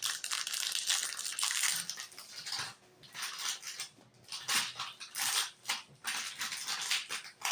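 Packaging of a pack of Bake Man cupcakes being opened by hand, crinkling and rustling in irregular bursts.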